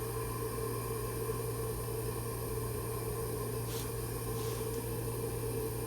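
Steady workshop hum and hiss, with a faint brief sound about four seconds in.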